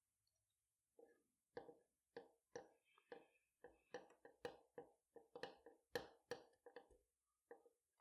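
Faint, quick rustling strokes of thread being drawn through nylon webbing and pulled tight during hand stitching, with the webbing handled, about two strokes a second, starting about a second in.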